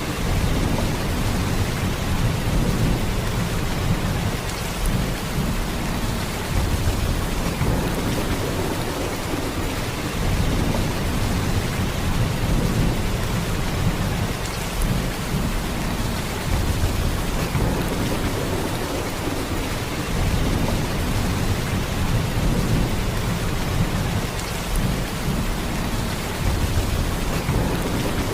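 Heavy rain falling in a steady downpour: a dense, continuous hiss over a deep low rumble that swells and eases every few seconds.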